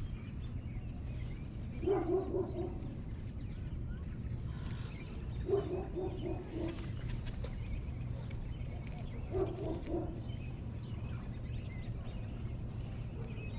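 A duck quacking in three short runs of rapid quacks, about four seconds apart, over a steady low background hum.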